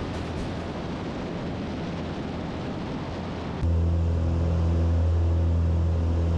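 Twin-engine piston airplane in its climb after takeoff. First a steady rushing noise of wind and engines from a camera outside on the wing, then about three and a half seconds in it changes abruptly to the louder, steady deep propeller drone heard inside the cabin.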